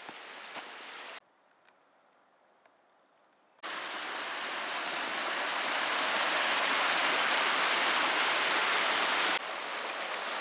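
Rushing mountain creek, white water pouring over rocks in a steady hiss. It starts suddenly about three and a half seconds in after a nearly quiet gap, and drops slightly near the end.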